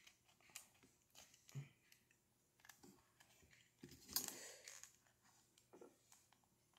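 Faint clicks and small handling noises from a plastic Athearn HO scale model caboose as its body is wiggled against the slots holding it to the chassis, with one louder rustle about four seconds in.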